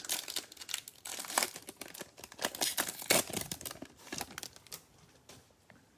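A trading card pack's wrapper being torn open and crinkled by hand, a dense run of irregular crackles that fades to a few faint ticks near the end.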